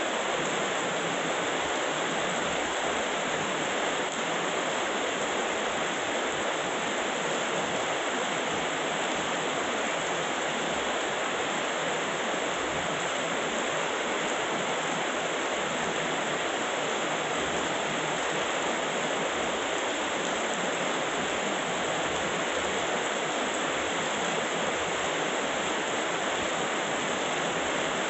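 Heavy rain pouring down steadily, an even hiss with no thunder claps.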